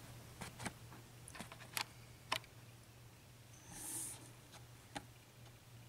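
Faint, scattered light clicks of small brass lock pins being handled and set down, with a brief soft rustle about four seconds in, over a faint steady hum.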